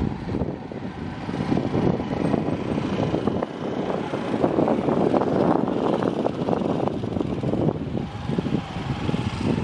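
A vehicle's rumble with a fine rattling running through it, swelling to its loudest midway and easing off towards the end.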